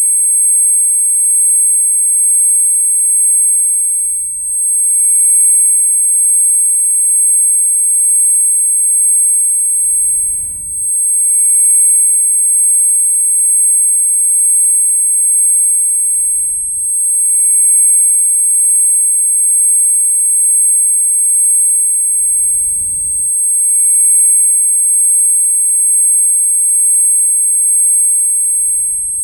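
Ear-ringing (tinnitus) sound effect: a steady, very high-pitched tone held without a break, layered with a few weaker steady tones, and faint low thumps about every six seconds underneath.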